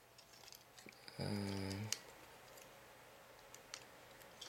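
Faint scattered clicks of plastic parts as a Transformers Animated Ironhide toy figure is handled and transformed. About a second in, a short low hum from the person holding it, the loudest sound.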